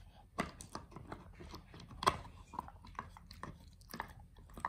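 English bulldog gnawing on a large deer antler chew: irregular clicks and crunches of teeth on antler, two or three a second, the loudest about two seconds in.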